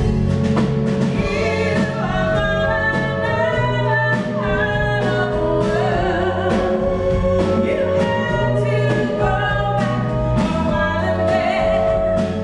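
A woman singing into a microphone with a live band, her long held notes over bass and a drum kit keeping a steady beat.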